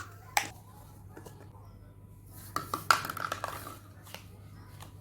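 Toy kitchen utensils clattering and clinking as a child handles them. There is one clink about half a second in, a quick flurry of clinks and scrapes from about two and a half to nearly four seconds, and a couple of single taps near the end.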